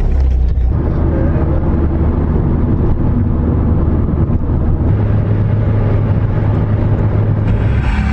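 Steady road and engine noise inside a moving car's cabin: a loud low rumble with tyre hiss, its low hum rising slightly about five seconds in.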